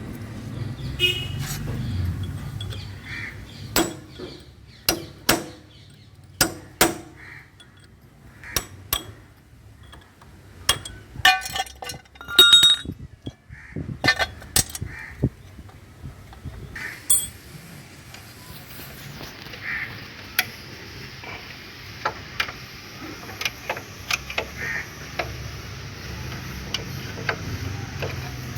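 Metal hand tools clinking and knocking against motorcycle parts during repair work: a string of sharp, irregular clinks, the loudest about halfway through with a brief metallic ring.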